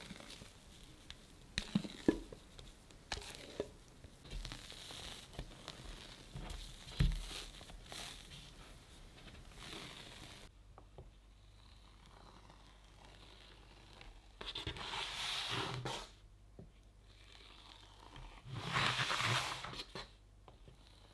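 Thick chocolate cake batter being tipped from a glass bowl onto a parchment-lined baking sheet, with clicks, knocks and scrapes, then spread with a plastic bench scraper: two long swishing strokes across the batter and parchment in the second half.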